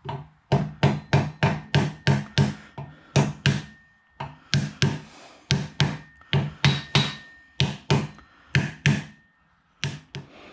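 Brass hammer tapping a pinion seal into a Ford 8.8 differential housing: quick sharp strikes, about three a second, in runs broken by short pauses.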